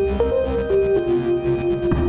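Background music: a melody of held notes stepping downward over a steady bass and beat.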